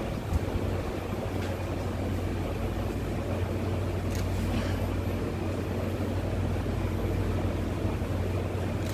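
Steady low hum of room noise in a large hall, with a few faint clicks.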